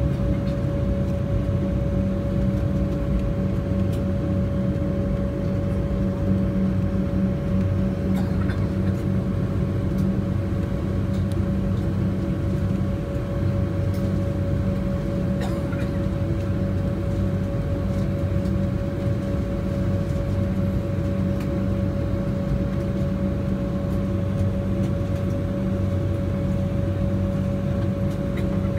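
Steady cabin hum inside a parked Embraer 190, from the airliner's air-conditioning and systems, with a constant whining tone over a low drone. A few faint clicks sound now and then.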